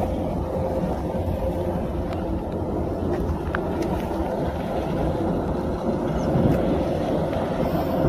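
Kubota combine harvester running steadily while cutting rice: a continuous mechanical hum with a steady whine through it, growing slightly louder near the end.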